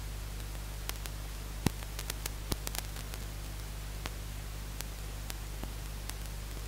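Steady static hiss over a low electrical hum, with scattered sharp clicks, the loudest about a second and a half in and several more in the following second.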